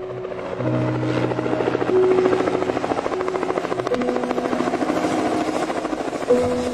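Helicopter passing overhead, its rotor beating in a rapid, even chop that builds over the first second or two and then holds steady, with soft piano music underneath.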